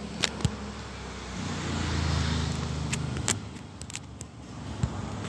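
A motor vehicle's engine passes by, swelling up about a second and a half in and fading away about two seconds later. There are a few sharp clicks of fingers handling the phone.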